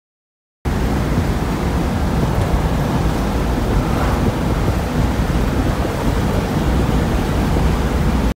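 Wind buffeting the microphone in a 1963 Chevrolet Nova SS convertible driving with its top down: a loud, steady rushing noise, heaviest in the low end, over the car's road and engine noise. It starts abruptly about half a second in and cuts off suddenly near the end.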